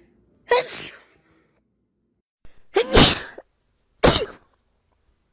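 A person sneezing three times: one sneeze about half a second in, a second one near the middle preceded by a short catching intake of breath, and a third about a second later.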